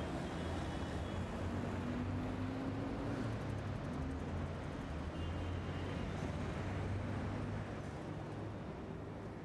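Street traffic ambience: a steady low rumble of passing vehicles, fading out near the end.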